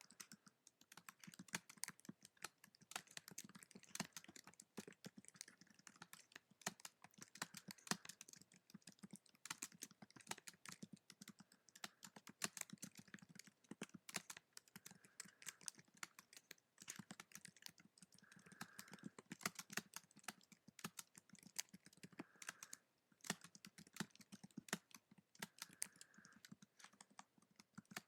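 Typing on a keyboard: a steady stream of quick, uneven key clicks with short pauses between runs.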